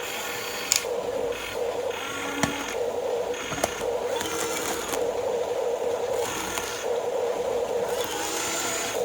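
Toy RC excavator's small electric motors whirring in short start-stop runs, with a few sharp plastic clicks and knocks.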